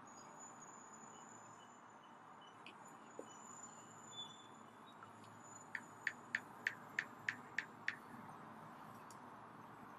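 iPhone on-screen keyboard key clicks as a password is typed: eight short, evenly spaced clicks, about three a second, over a faint steady hiss.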